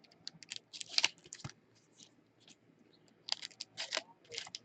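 Computer keyboard typing: irregular runs of light key clicks, with a pause in the middle.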